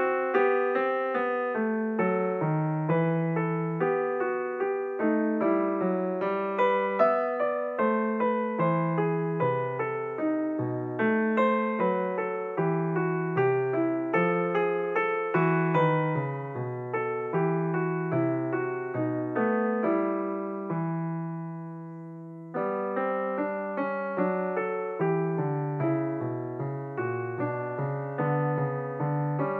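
Piano music laid over the footage: a flowing run of notes with a held chord that fades out about two-thirds of the way through, then the playing resumes.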